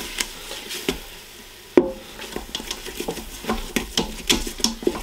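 Plastic-coated whisk stirring a roux in a multi-cooker's cooking pot, scraping and clicking against the pot with a light sizzle from the roux. A sharper knock comes a little under two seconds in, then quick, closely spaced whisk strokes.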